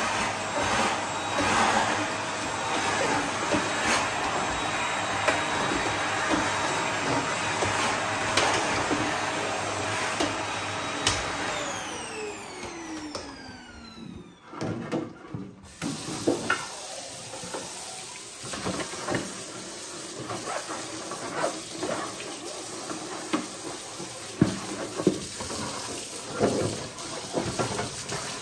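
Canister vacuum cleaner running steadily with a hose nozzle, switched off about eleven seconds in and winding down in a falling whine. Then tap water runs into a stainless steel sink with irregular clatter and scrubbing as something is washed with a brush.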